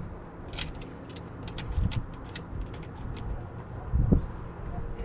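Light irregular clicks and knocks of hands and a tool working a plumbing hose fitting tight, with a heavier knock about four seconds in and a low rumble of handling noise underneath.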